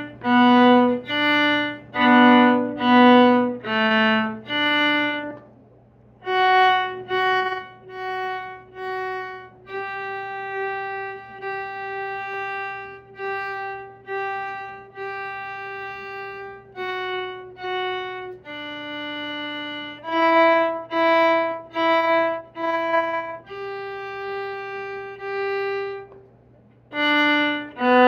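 Solo viola bowing a simple melody one note at a time: groups of short, detached notes with a short rest about five seconds in, longer held notes in the middle, then short notes again after a brief rest near the end.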